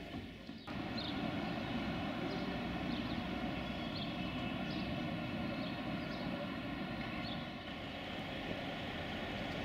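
Steady outdoor background rumble with a few faint, short high chirps scattered through it. It comes in abruptly just under a second in.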